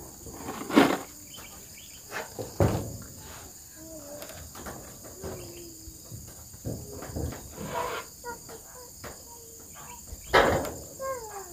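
Steady high-pitched chorus of crickets and other insects, with three loud knocks: about a second in, near three seconds in, and near the end.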